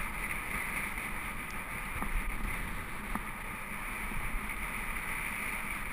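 Mountain bike rolling fast over a gravel forest track: a steady rumble and hiss of tyres on gravel and wind on the microphone, with a few small clicks from the bike.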